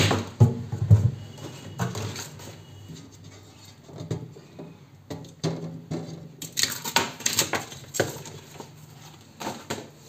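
Printed plastic liner sheets being handled and lifted off glass fridge shelves: clicks and taps of plastic against glass. There are a couple of dull knocks about half a second and a second in, and a cluster of crackly rustles later on.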